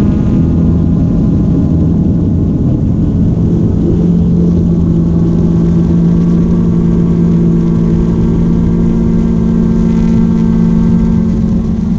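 Quadcopter drone's propellers and motors humming loud and steady, heard through the drone's own onboard camera, the pitch shifting slightly about four seconds in as it manoeuvres.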